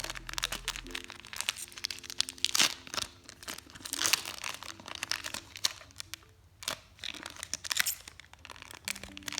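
Foil booster-pack wrapper crinkling and tearing as a pack of Pokémon cards is handled and opened, in many quick irregular rustles. Faint background music runs underneath.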